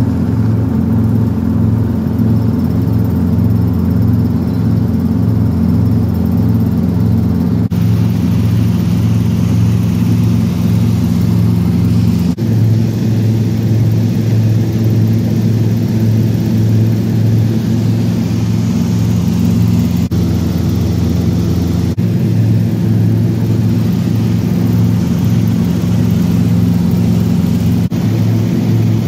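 Light two-bladed helicopter running at flight power, heard from inside the cabin: a steady, loud engine and rotor drone with a low pulsing beat, shifting abruptly in tone a few times.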